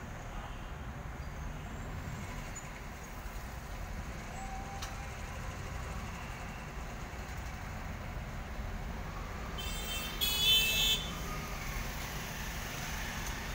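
Steady low background rumble, with one short, loud, high-pitched toot about ten seconds in.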